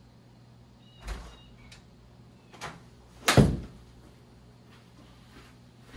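A few separate knocks and thumps, the loudest about halfway through with a short low ringing after it, and another heavy thump at the very end.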